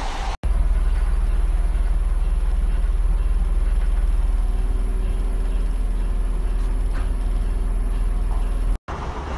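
Train standing at a station, giving a loud, steady low rumble with a faint constant high-pitched whine. The sound starts and stops abruptly at edits, with moving-train noise briefly on either side.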